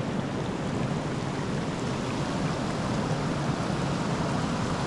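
Steady rushing and splashing of river water as a hooked chub thrashes at the surface beside the bank rocks while it is brought to the net.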